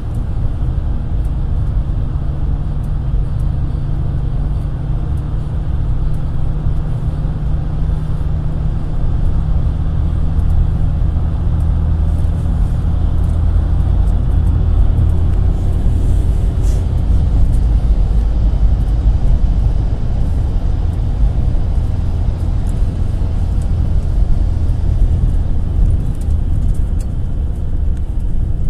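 GAZ-A65R52 Next minibus on the move, heard from inside: a steady low engine hum and road rumble, with the engine note shifting slightly now and then.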